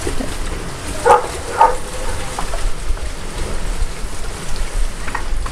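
Steady rushing outdoor noise with a low rumble, the kind of open-air ambience a handheld camera picks up on a seaside terrace.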